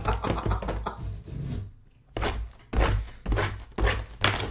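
Cardboard card boxes being handled on a table: a series of knocks and thuds, with a short pause about two seconds in.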